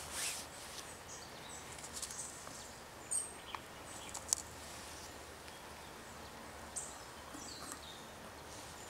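A wooden spoon scooping sugar and knocking lightly against a bowl and a small coffee pot: a few short, soft scrapes and clicks over a steady hiss.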